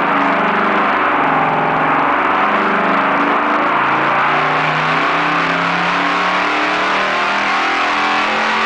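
V8 engine running on a test stand through tube headers and open exhaust pipes, holding a steady speed with its pitch wavering slightly up and down.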